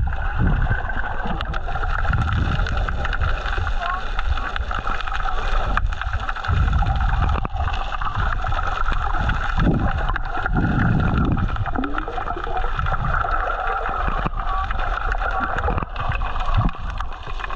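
Muffled sea water around a camera used for snorkeling: steady gurgling and sloshing, with low surges every few seconds.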